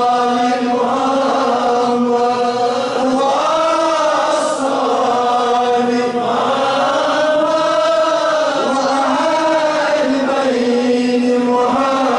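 A man's voice chanting a supplication in a slow melodic line, holding long notes that bend up and down without pause.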